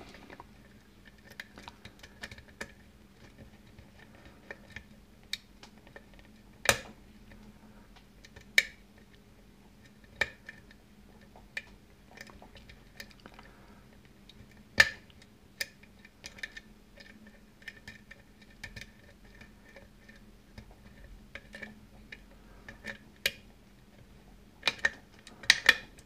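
Lock pick and tension wrench working the pins of a modified Yale pin-tumbler cylinder: scattered small metallic ticks and scrapes, with a few sharper clicks as pins are probed and set, and a cluster of clicks near the end.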